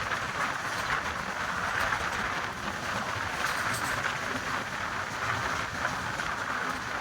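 Express passenger train running along the track: a steady, even rushing noise of wheels and carriages in motion.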